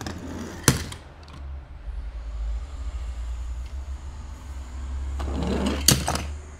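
Toy cars rolling across a corrugated plastic board with a low rumble. Each run builds up and ends in a sharp clack, once about a second in and again near the end.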